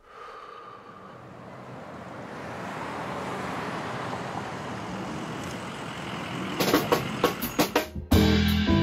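Street traffic noise that swells over several seconds. Near the end it gives way to a quick run of sharp hits, and then a band starts playing.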